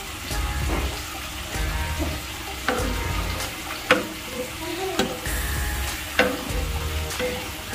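Pork pieces sizzling in fat and water in a non-stick pan while a spatula stirs them. The spatula knocks against the pan four times, about once a second, from near the middle on.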